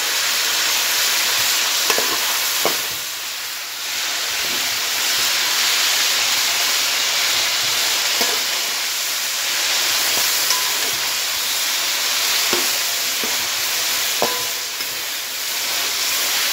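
Chunks of lamb sizzling in hot oil in a metal pot over high heat, turned now and then with a spoon that clicks against the pot. The meat is searing while its own water cooks off, on the way to browning.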